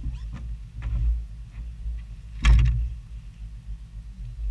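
Knocks and rattles from handling a freshly netted crappie and the landing net in a boat, the loudest knock about two and a half seconds in, over a steady low rumble.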